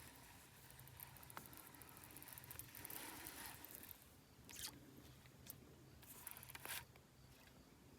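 Near silence with faint fishing-reel cranking noise and a few soft clicks, as a jerkbait is worked and retrieved.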